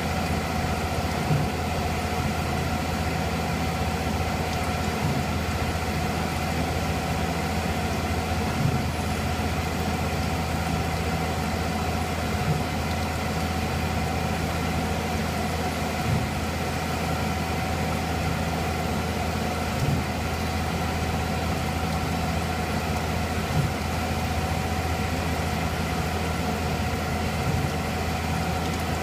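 Milling machine running steadily as a 1/32-inch end mill finishes a metal part under flood coolant: an even low machine hum with a steady tone above it, and a slight swell in level about every four seconds.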